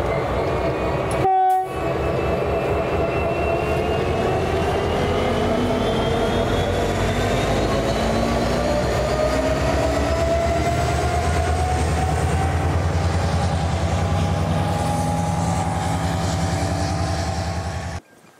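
Queensland Rail 2900 class diesel-electric locomotive running on the mainline: a low, pulsing engine throb with whining tones that slowly rise in pitch as it gains speed. A short horn note sounds about a second and a half in, and the sound cuts off suddenly near the end.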